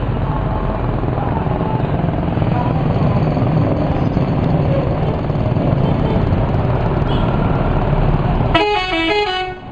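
Steady low rumble of bus engines for most of the stretch, then, near the end, a bus's 'telolet' multi-tone musical horn plays a quick stepping tune of several notes for about a second.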